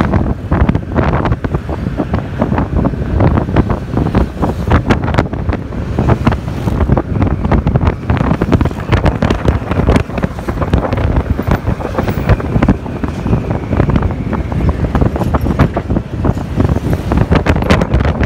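Wind buffeting the microphone of a motorcycle moving at about 50 km/h, a loud, gusty rumble with constant rapid thumps. The bike's running noise blends in underneath.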